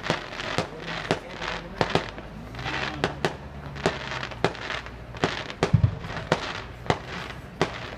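Aerial fireworks shells bursting: an irregular string of sharp bangs, about two a second, with a deeper boom a little before the end.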